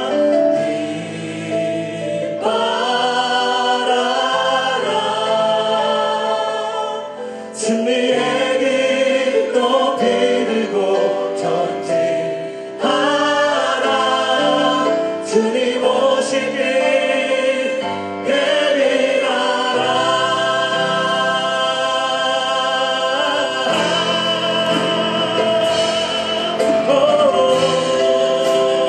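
Worship team of several singers leading a Korean contemporary praise song together, with acoustic guitar and band accompaniment.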